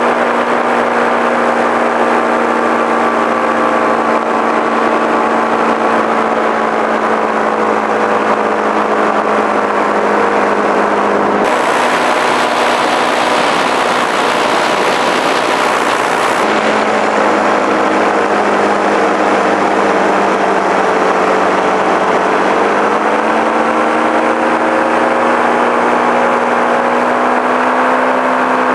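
Light aircraft's engine running steadily in flight, heard on board. A rush of hiss lies over it for about five seconds midway, and the engine's pitch rises a little about three quarters of the way through.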